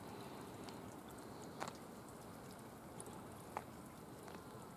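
Quiet outdoor ambience: a faint steady hiss with two short, sharp clicks about two seconds apart and a few fainter ticks.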